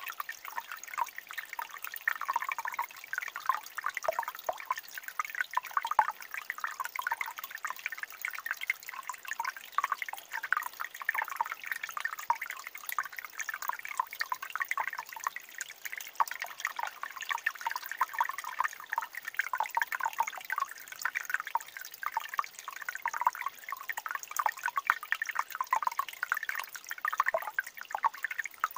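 Shallow stream water trickling and gurgling over rocks and sand, a steady dense run of small drips and splashes.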